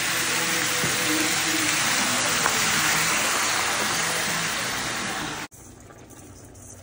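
Chopped vegetables sizzling in a hot frying pan, a loud steady hiss, with hot water poured in from a kettle hissing onto the pan. The sound cuts off abruptly about five and a half seconds in.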